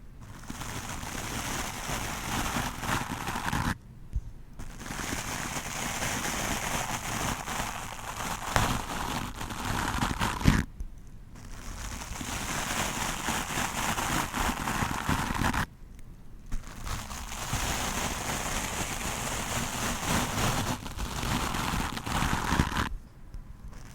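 Stiff wooden brush scrubbed hard against a microphone: a dense, scratchy crackle in long passes, broken by four brief pauses.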